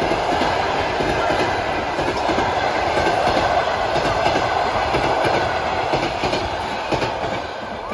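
A train passing close by at speed, with loud, steady rail and wheel noise that drops away near the end as it goes by.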